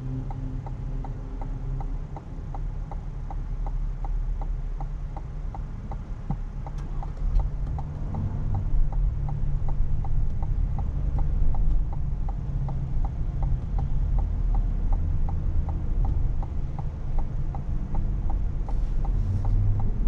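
Turn-signal indicator ticking steadily inside the Cadillac Escalade ESV's cabin, about three ticks a second, over the low rumble of the SUV driving on the freeway.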